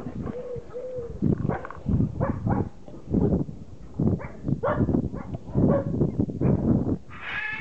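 Two-month-old border collie puppies playing together, making a quick run of short yips and growling noises about every half second. A higher, longer whine comes near the end.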